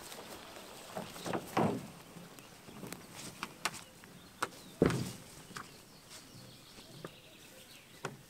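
Footsteps on grass and scattered knocks and scrapes from a canoe being gripped by its rope handle and dragged across the grass, with one louder thump from the hull about five seconds in.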